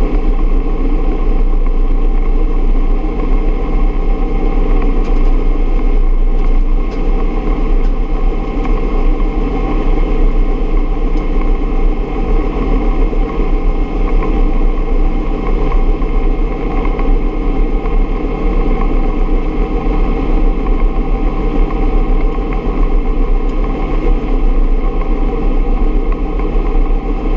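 Bell UH-1 Huey helicopter's turbine engine and rotor running steadily in flight, a loud, even drone with no breaks.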